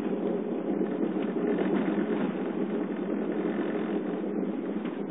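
Cabin noise of a 2008 Subaru Forester 2.5XT driving on the road, with the brake released: a steady rough rattling from the front brakes over the road and engine noise. It is the sign of front brake pads loose in their calipers, pads the owner says "dance" and that dealer-applied grease quiets for only two weeks.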